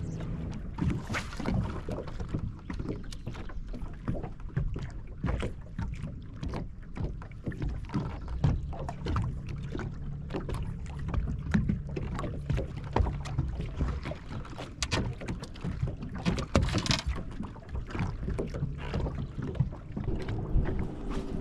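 Small waves slapping against a bass boat's hull in irregular knocks and splashes, over the steady low hum of another boat's Mercury outboard engine, which stands out more near the end.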